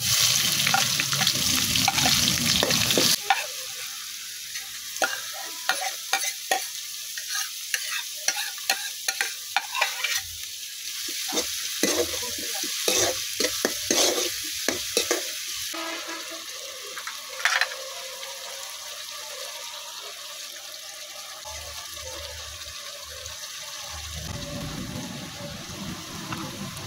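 Chopped onions dropped into hot oil in a metal pan, with a loud sizzle for the first few seconds. Then a spatula scrapes and stirs them against the pan in quick strokes, over a steady frying sizzle.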